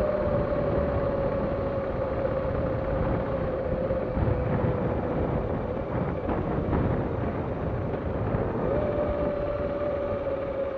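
Vehicle engine running at a steady speed under a continuous rush of road and wind noise. Its hum sags slowly in pitch, then steps back up about nine seconds in.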